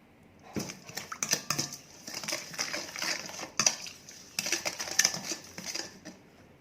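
Spoon clinking and scraping against a bowl in a quick irregular run while the salad dressing is stirred or ladled; it starts about half a second in and stops shortly before the end.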